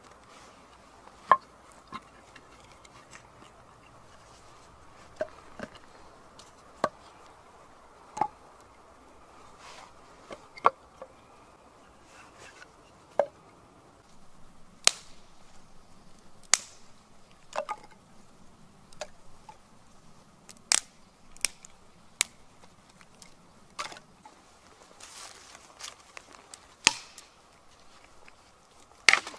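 Cut logs knocking against each other as they are laid and stacked into a criss-cross log-cabin pile on the ground: sharp wooden clacks at irregular intervals, one or two every few seconds.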